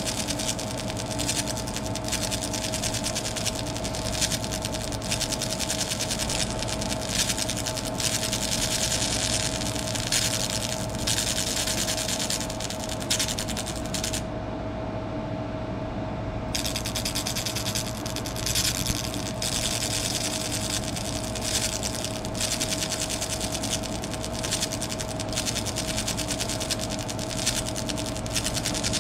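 Laser engraver running while it burns a stipple texture into an airsoft part: a steady machine hum under a fast, crackling hiss. The hiss stops for about two seconds around the middle, then starts again.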